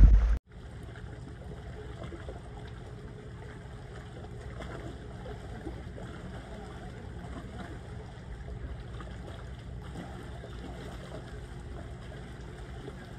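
Steady low wash of wind and small sea waves along a rocky shore.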